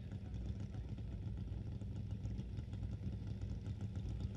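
Pro Stock drag-racing motorcycles idling at the starting line before the launch, a steady low engine sound.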